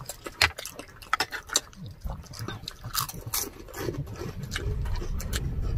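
Close-miked eating sounds: chewing, with many short sharp clicks and smacks of the mouth, while a low rumble builds from about two seconds in.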